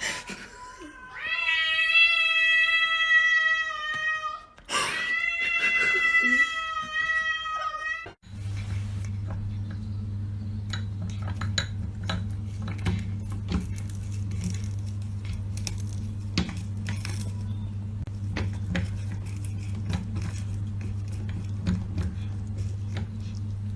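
A cat yowling in two long, drawn-out calls, each held at a steady pitch for about three seconds. After about eight seconds this gives way to a steady low hum with scattered clicks.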